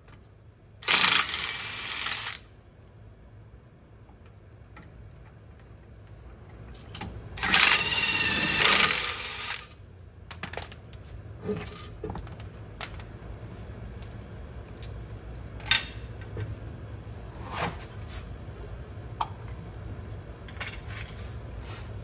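Cordless impact wrench hammering the lug nuts loose on a large aftermarket wheel, in two bursts of about a second and a half and two seconds. After them come scattered metallic clinks as the loosened lug nuts are handled.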